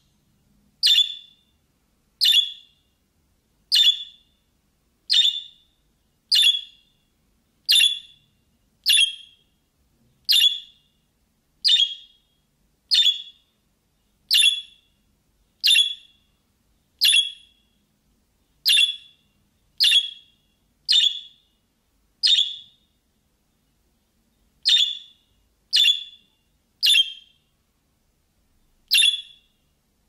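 Budgerigar giving one short, sharp chirp over and over, each call alike, about three calls every four seconds, with a couple of brief pauses in the series near the end.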